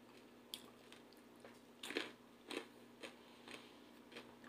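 Faint chewing of a mouthful of pizza: a handful of soft, irregular wet crunches, the clearest about two seconds in.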